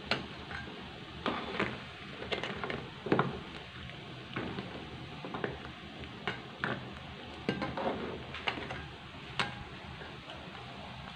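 Metal spatula stirring crabs in coconut-milk gravy in an aluminium wok, knocking and scraping against the pan in irregular clicks about once or twice a second, over the steady hiss of the gravy simmering.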